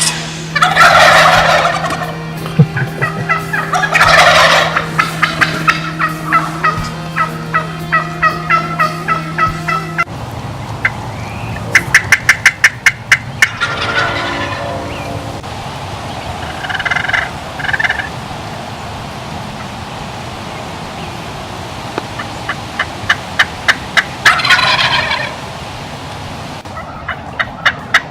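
Rio Grande wild turkey gobbling several times, loudest near the start and again in the last few seconds, with runs of quick sharp notes in between.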